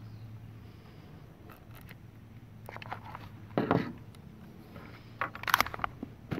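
Metallic clicks and clacks of a pistol-caliber carbine being handled and loaded at a bench: a knock about three and a half seconds in, then a louder clatter of sharp strikes about five and a half seconds in.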